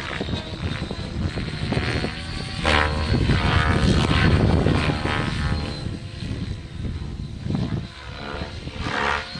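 700E electric radio-controlled helicopter flying, its motor and rotor whine rising and falling in pitch as it manoeuvres, with sharp pitch swoops about a third of the way in and again near the end.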